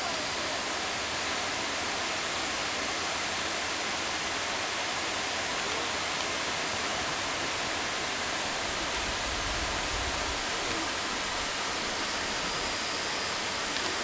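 Steady, even rush of falling water from a waterfall cascading into a pool.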